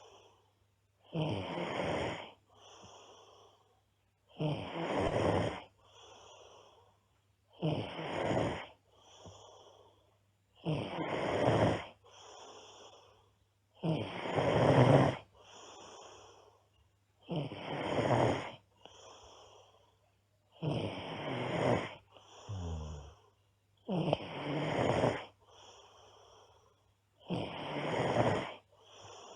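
A girl snoring loudly in a steady rhythm: a loud, rough snore about every three and a half seconds, each followed by a softer breath.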